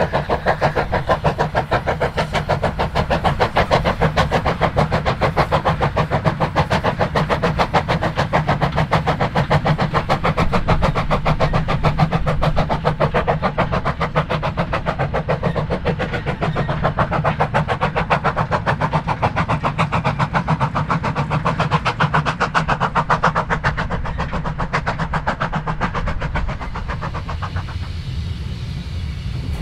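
Steam locomotive exhaust beating in a fast, even rhythm. It grows quieter and duller near the end.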